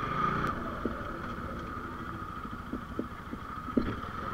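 Bajaj Pulsar 220's single-cylinder engine running at low revs as the motorcycle rolls slowly over a rough, muddy dirt track, with a few short knocks scattered through it.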